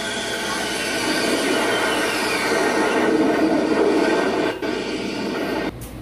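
Loud audience cheering and shrieking, with many shrill, drawn-out screams over a dense crowd noise; it cuts off suddenly near the end.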